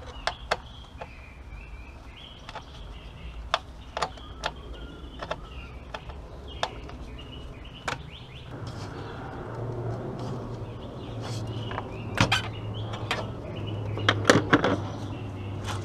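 Scattered sharp clicks and knocks of hand work with a screwdriver on the plastic air intake tube and its clamp at the throttle body, with birds chirping in the background. About halfway through, a low steady hum comes up.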